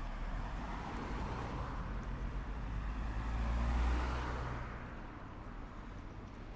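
Cars passing close by on the road. The tyre and engine noise swells to its loudest about four seconds in as a car goes by, then fades away.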